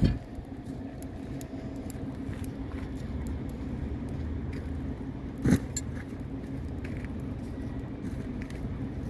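Steady low drone of an idling engine, with one sharp knock about five and a half seconds in and faint scattered clicks.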